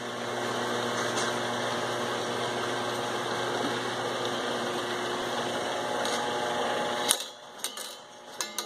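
Pharmafill powered rotary turntable and bottle conveyor running: a steady motor hum with a whirring noise. About seven seconds in it drops off suddenly with a knock, followed by a few light clicks.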